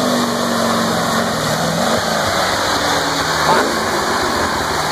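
Jeep Willys CJ5 engine running hard as it drives through mud, with its pitch falling in steps about two seconds in, over the splash and spray of the tyres churning mud.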